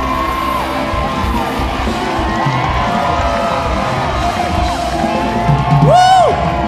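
Rock-and-roll music playing on after the last sung line, with an audience cheering and screaming over it. Near the end, one loud, high scream stands out above the rest.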